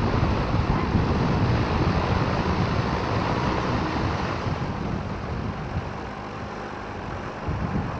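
Single-engine light aircraft's piston engine running at idle with the propeller turning, mixed with wind buffeting the microphone.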